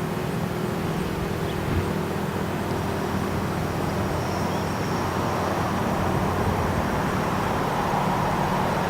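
Car traffic moving past, with steady engine and tyre noise; one vehicle grows louder over the last few seconds.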